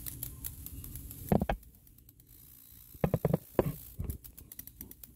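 A few dull thumps, one about a second and a half in and a quick cluster around three seconds in, over light scratchy rustling.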